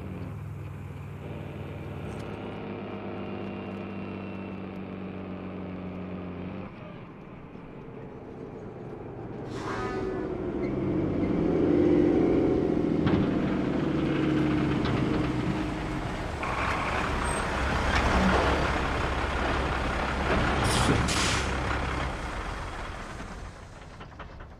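Heavy diesel tanker truck, a 1955 Peterbilt 281, pulling in and stopping: its engine rumble swells from about seven seconds in and stays loud until near the end. Its air brakes hiss sharply at about ten seconds and again near twenty-one seconds.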